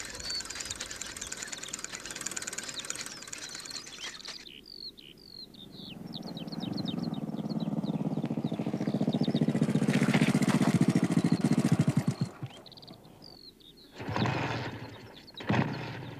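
Birds chirping, then a small motorbike engine running, growing louder for about six seconds before it cuts off. A couple of short knocks follow near the end.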